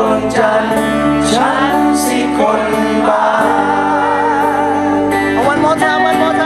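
Live band music: a wavering sung vocal line with vibrato over guitar and steady bass notes.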